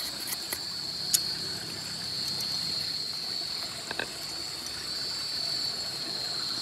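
Steady chorus of crickets, a constant high-pitched trill. Over it, a few sharp clicks and a knock from a knife whittling a bamboo skewer and a wooden cutting board being handled; the loudest click comes about a second in, the knock near four seconds.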